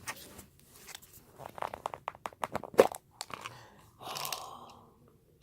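Kinetic sand being squeezed and crumbled by hand: a quick run of soft crunching crackles, then a brief rustle about four seconds in.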